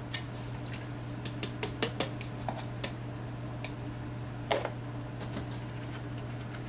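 A plastic tub of raw chicken livers tipped and shaken out into a blender jar: scattered short clicks and taps of the tub against the jar, with one louder knock about four and a half seconds in, over a steady low hum.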